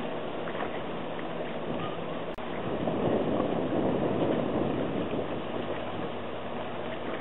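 Steady rushing of wind on the microphone, broken by a click and a short dropout about two seconds in, after which the rushing grows louder for a few seconds and then eases.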